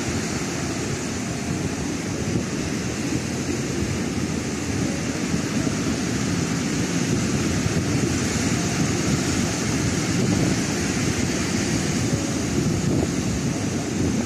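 Ocean surf breaking and washing up a sandy beach: a steady rushing that swells a little midway, with wind rumbling on the microphone.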